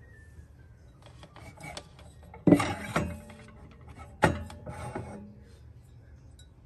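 Ceramic mugs clinking and knocking against each other and a wire shelf as one is lifted out of a crowded cabinet. Light clicks and rattling, with two sharp knocks under two seconds apart near the middle.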